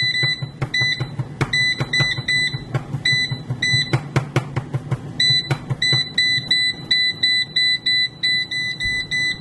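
Okaysou air fryer's touch control panel beeping again and again as its buttons are pressed to set the temperature down from 390. The beeps are short and of one high pitch, about three a second with a pause in the middle, over a steady low hum.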